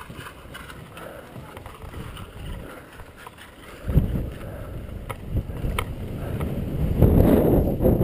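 Wind and handling noise rumbling on a head-mounted camera's microphone as a paintball player moves between bunkers, jumping up suddenly about halfway through and louder again near the end. A few faint, sharp clicks sound in the first half.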